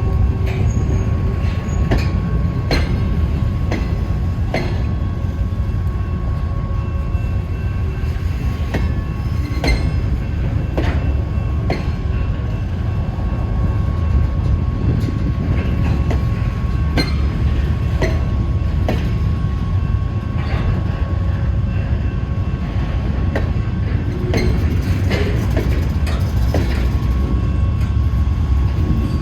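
Freight train cars rolling past: a steady low rumble with irregular clicks and clunks of the wheels over the rail joints, and a thin steady whine underneath.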